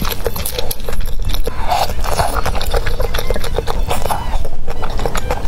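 Close-miked chewing and slurping of spicy noodles and tofu skin, a dense run of wet mouth clicks and smacks.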